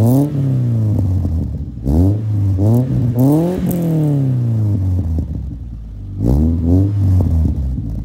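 Subaru Impreza 2.5i's flat-four engine heard at the tailpipe of its new stainless cat-back exhaust, idling and blipped up in several short revs that fall straight back to idle: one at the start, a quick cluster of three or four around the middle, and one more near the end.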